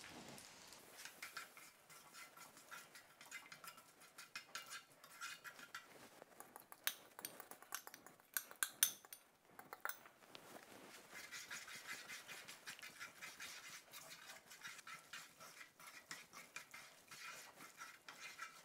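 Wooden chopsticks stirring and tossing spaghetti in a nonstick pan, mixing the egg and cheese into a creamy carbonara sauce: soft wet squelches and light clicks of the sticks against the pan, thickest and loudest about halfway through, over a faint steady hiss.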